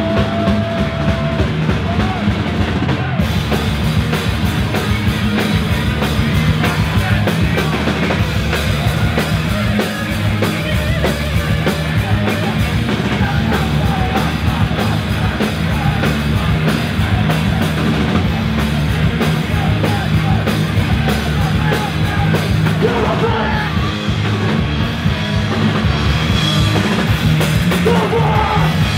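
Punk rock band playing live and loud, with guitars, bass and a drum kit driving along under shouted vocals.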